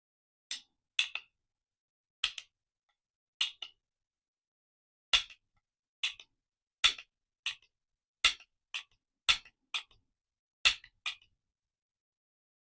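Sharp metallic clicks from AR-15 lower receiver parts being worked by hand: about a dozen at uneven intervals, many followed closely by a softer second click.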